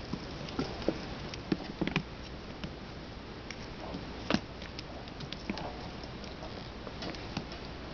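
Young kittens scampering and pouncing on a tile floor: irregular light taps and scrabbles of paws and claws, with a sharper knock about four seconds in, over a steady hiss.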